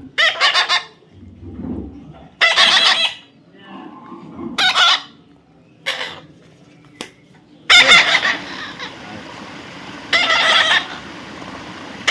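Parrot giving a series of short, loud, harsh calls, about six of them a second or two apart.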